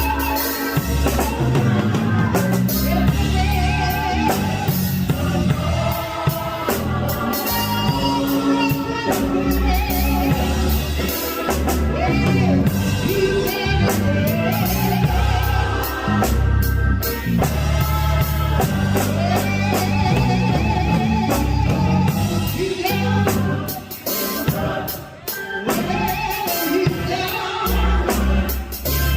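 Gospel music: a choir singing with a drum kit and bass.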